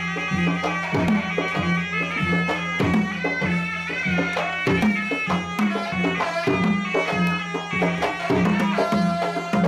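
Traditional Malay silat accompaniment: a reed pipe (serunai) playing a wavering, ornamented melody over a steady rhythm of two-headed hand drums (gendang).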